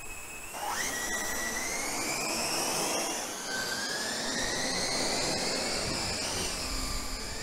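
Multirotor drone motors and propellers whining over a steady hiss; the pitch climbs sharply about half a second in as the motors spin up, then keeps rising slowly, with a second whine joining about halfway through.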